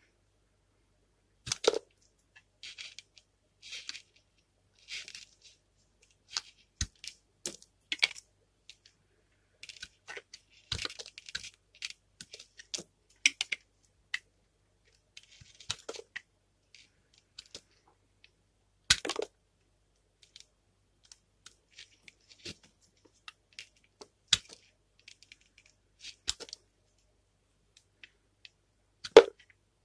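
Utility knife blade cutting into a bar of soap, with irregular crisp cracks and crunches as chunks break away and softer scraping strokes in between. The loudest crack comes a little past halfway, with another just before the end.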